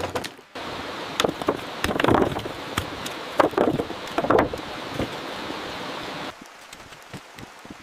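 A steady rushing noise with irregular knocks and clatters, typical of building work. It cuts off abruptly about six seconds in, leaving fainter scattered clicks.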